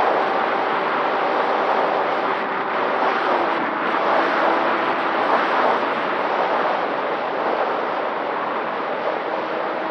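Electric motor and propeller of an FPV flying wing in flight, a steady whine under a loud rush of wind on the on-board microphone; the motor's pitch drops a step about three and a half seconds in, as the throttle is eased.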